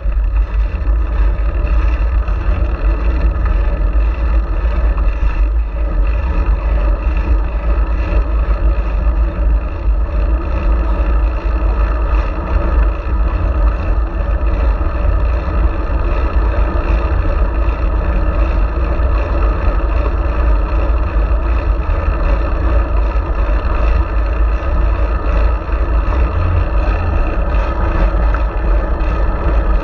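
Wind buffeting a bicycle-mounted GoPro Hero4's microphone while riding at speed: a steady, loud low rumble with rushing noise above it.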